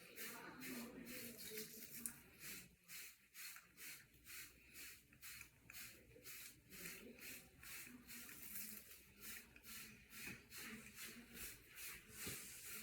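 Hair brush bristles stroking through short hair, a faint, scratchy swish about three times a second.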